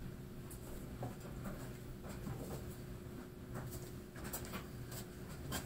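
Scattered light knocks and scrapes from a person handling tools and moving about, over a steady low hum.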